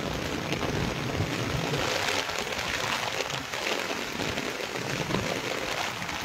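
Heavy rain pouring down steadily, driven by wind.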